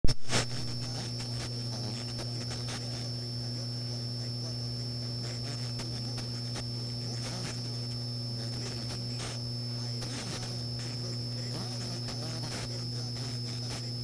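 AM radio static: a steady low hum and a thin, steady high whine with irregular crackles, over faint, unintelligible speech. It opens with a sharp crackling burst.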